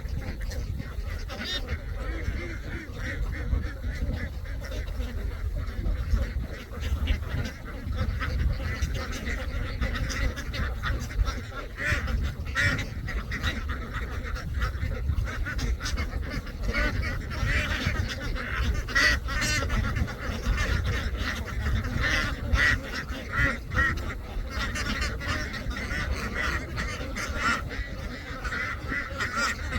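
A large flock of domestic ducks quacking continuously, many calls overlapping into a steady din, with a low rumble underneath.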